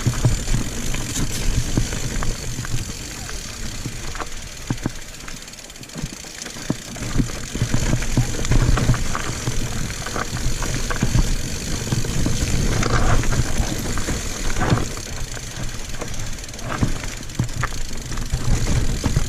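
Mountain bike riding a rough dirt singletrack: a steady rumble of the ride with frequent knocks and rattles from the bike over the bumps, easing briefly about five to seven seconds in.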